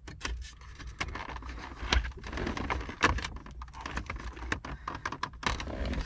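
Irregular plastic clicks and knocks from the climate control switch and dash trim of a 2009 Jeep Wrangler JK being gripped and wiggled by hand to work the switch loose, with sharper clicks about two and three seconds in.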